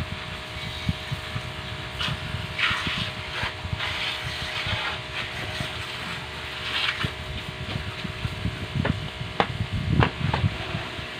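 Electric high-pressure washer running, its motor humming steadily while the water jet hisses in louder patches that come and go. A few sharp knocks come near the end.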